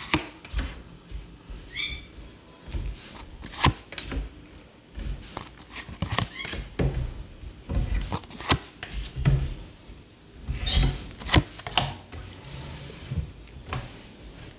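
Tarot cards being handled and dealt onto a table: scattered taps, soft thumps and rubbing as cards are shuffled, drawn and laid down, with a brief sliding hiss near the end. Two short high chirps stand out, one early on and one about ten seconds in.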